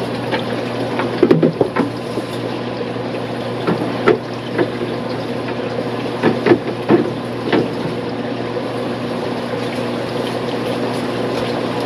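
Steady hum and water noise of fish-tank pumps and filters running, with a few short knocks and splashes from handling at the tank, about one, four and six to seven seconds in.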